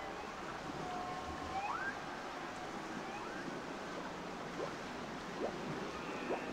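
Ambient sea-themed music track: a steady wash of ocean surf with a few short tones sliding upward in pitch and some soft held notes.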